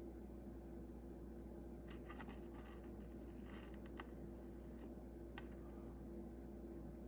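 Light scratching and tapping of a soldering iron tip working at a circuit-board solder joint that is not yet melting, in a few short clusters about two and four seconds in and one tick near five and a half seconds, over a steady low hum.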